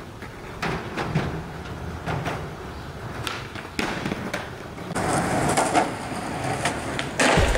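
Skateboard on concrete: several sharp clacks of the board being popped and landing, wheels rolling over the pavement, and a heavy landing thud near the end.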